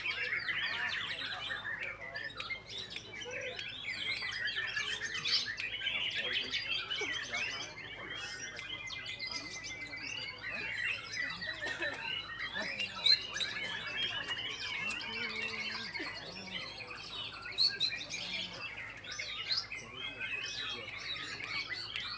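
White-rumped shamas (murai batu) singing, many birds at once in a dense, overlapping tangle of rapid whistles and chirps, with two sharp louder notes past the middle.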